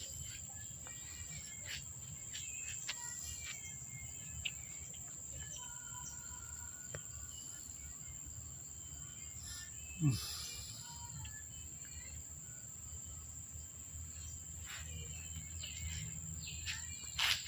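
Garden ambience: a steady high insect drone over a low rumble, with scattered short bird calls. One brief falling low sound about ten seconds in is the loudest moment.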